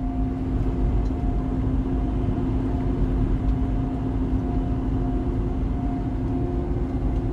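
Semi-truck cab at highway cruising speed: a steady diesel engine drone and low road rumble, with a few unchanging hums held over it.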